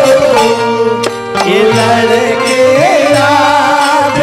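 Live Bhojpuri folk music from the dugola stage band: a held melody line that bends in pitch, over a steady hand-drum rhythm. There is a brief dip in level with a few sharp drum strikes about a second in.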